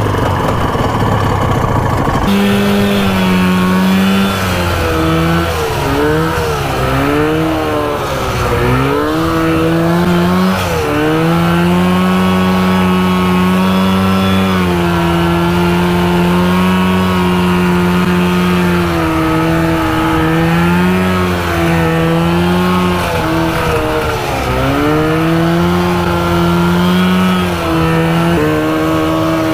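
Two-stroke 400cc engine of a 1970s PPT mini tank running hard, its pitch rising and falling as it revs, with several sharp dips and recoveries.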